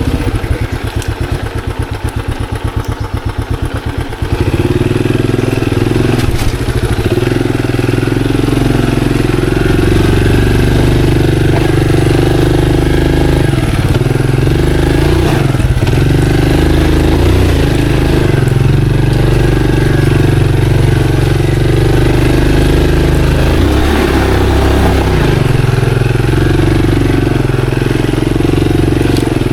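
Monarch Axis 125 motorcycle engine with slow, even firing pulses for about four seconds, then louder and steady as the bike rides on, its pitch shifting with the throttle.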